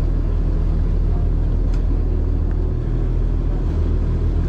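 Small sightseeing boat's engine running steadily under way, a low drone heard from inside the cabin.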